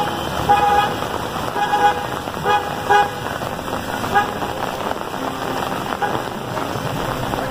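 A vehicle horn tooting about five times in short blasts in the first half, over a steady hiss of rain and traffic on the wet street.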